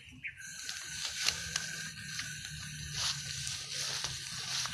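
Leafy vines rustling and crackling as they are pulled and picked by hand, with irregular snaps and footsteps through the undergrowth. A faint steady low hum runs underneath.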